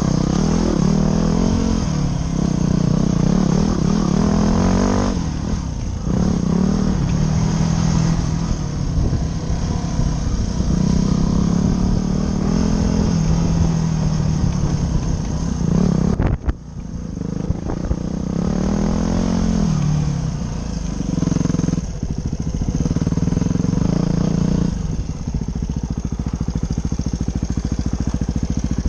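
Dirt bike engine heard from the rider's helmet, revving up and easing off again and again as the throttle opens and closes. The pitch climbs and falls every few seconds. About sixteen seconds in it cuts out briefly, then picks back up.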